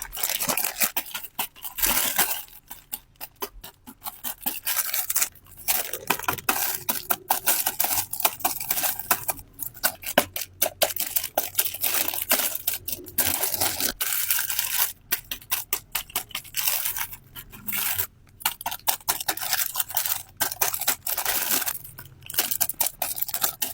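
Packaging crinkling and tearing as it is handled and opened, in quick irregular runs of crackles with short pauses between them.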